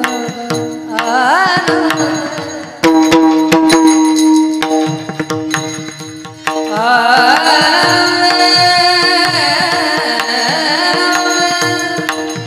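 A singer's voice in a wordless, ornamented devotional vocal passage, its pitch gliding and wavering through a short rising phrase and then a long held phrase, over a steady drone note and tabla strokes.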